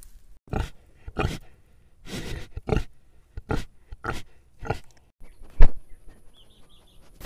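A pig sniffing and snorting at a small handheld microphone held to its snout, a series of short breathy snorts about every half second. About five seconds in a dog takes over, with one loud sniff at the microphone followed by quieter breathing.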